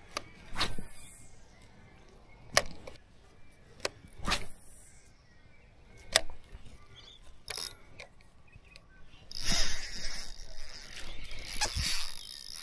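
Sharp clicks and short swishes every couple of seconds from a fishing rod and spinning reel as a lure is worked. About nine and a half seconds in, a continuous ratcheting whirr from the Daiwa Saltist 2500 spinning reel begins as a hooked fish is played.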